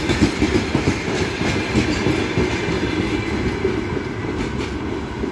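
Freight train of open gondola wagons rolling past at close range, the wheels clattering and rumbling on the rails. The sound eases off as the last wagon passes near the end.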